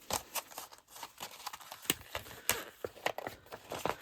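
Packaging of a set of cutting dies being opened by hand: irregular crinkling and rustling with many sharp little clicks and crackles.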